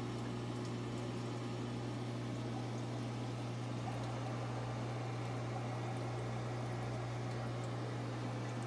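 Steady low hum with a faint running-water, bubbling hiss from the fish room's aquarium equipment: filters and aeration running on the tanks.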